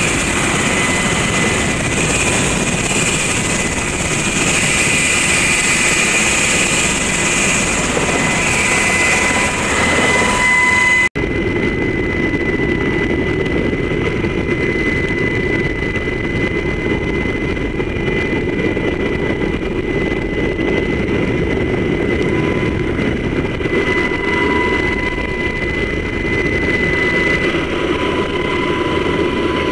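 Helicopter engines and rotor heard from the open cabin door: a loud, steady din with a high whine. An abrupt cut about eleven seconds in leaves a lower, rumblier version of the same noise.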